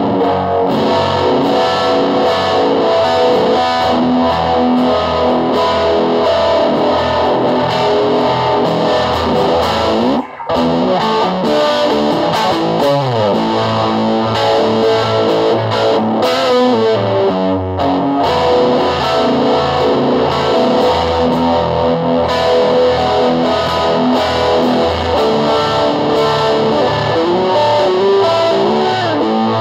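Music led by electric guitar played through distortion and effects, with a brief break about ten seconds in.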